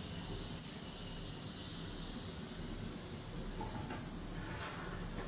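Sliced peppers, onions and tomatoes sautéing in annatto oil in a skillet over a gas burner: a steady sizzle that turns a little brighter near the end.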